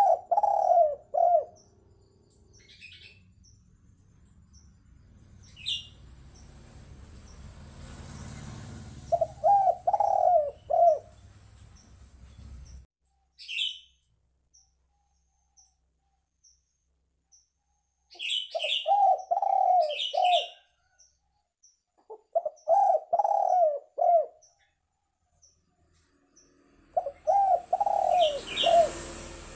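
Spotted dove cooing: five phrases of three or four notes, spaced several seconds apart. Short high chirps of small birds come in between.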